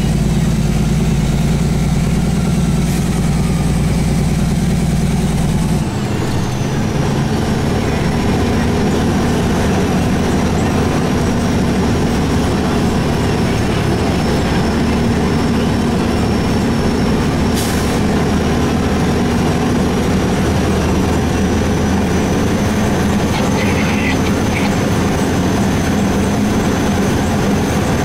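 Truck running down a rough gravel road, heard from inside the cab: a steady engine drone with road and cab rattle. About six seconds in, the engine note changes to a rougher rumble and a thin high whine sets in and holds.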